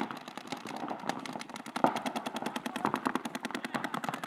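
Paintball markers firing fast strings of shots during a game, a rapid, rattling run of pops that goes on without a break.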